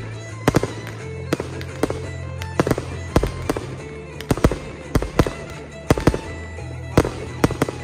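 Aerial firework shells bursting in a rapid, irregular string of sharp bangs, roughly two a second, over music playing underneath.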